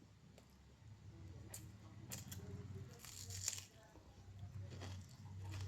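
Close-miked eating sounds: scattered clicks and a short tearing, crackling noise about three seconds in, as food is torn and chewed, over a low steady hum.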